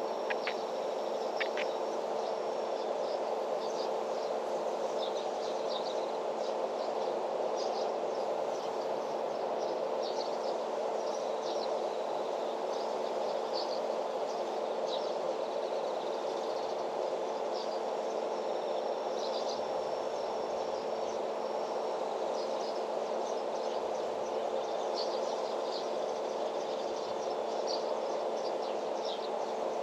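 Outdoor farm ambience: many short, high insect chirps and calls come and go over a steady low hum.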